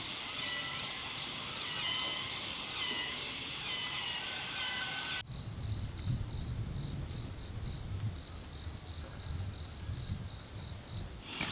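High chirps and short whistles for about five seconds, then, after an abrupt cut, an insect chirping in steady, even pulses, a couple of chirps a second, over a low rumble.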